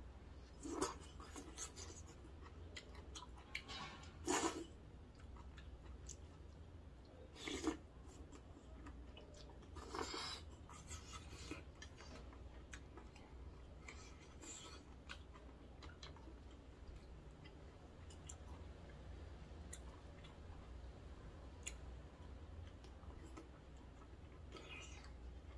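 Close-miked eating sounds: knife-cut noodles slurped and chewed. A few louder slurps come in the first ten seconds or so, then quieter chewing with small clicks and ticks.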